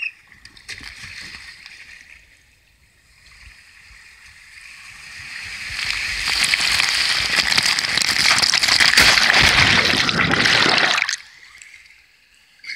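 Water rushing and spraying over a body-worn action camera going down an open water slide, building over a few seconds until it is loud, then cutting off suddenly near the end as the rider reaches the splash pool.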